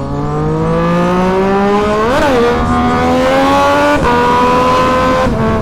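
Sport motorcycle engine accelerating hard, revs climbing steadily. The revs flare sharply and fall back about two seconds in, then drop at a gear change about four seconds in and again near the end.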